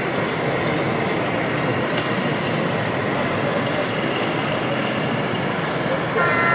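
OO gauge model train running, heard over the steady hubbub of a busy exhibition hall. Near the end a short pitched sound briefly rises above it.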